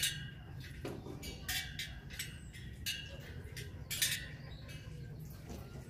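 Spoke wrench clinking against the spokes and nipples of a laced motorcycle rim on a truing stand, as the spokes are tightened to take out a slight wobble. The clinks are sharp and ringing, about five of them, spaced irregularly.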